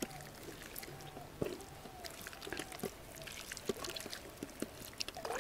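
Irregular wet squelches and small smacks of hands rubbing thick masala paste into a whole raw chicken.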